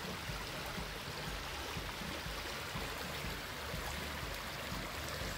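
Shallow woodland creek flowing over small riffles: a steady rush of running water.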